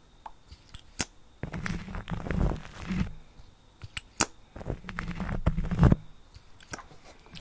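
Lipstick rubbed directly against a microphone: muffled, rumbling scraping strokes with crackle, in two longer passes, with a few sharp clicks in between.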